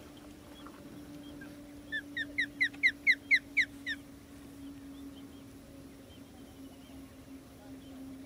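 Osprey calling: a quick series of about ten high, whistled chirps over two seconds, about four a second, loudest in the middle of the run.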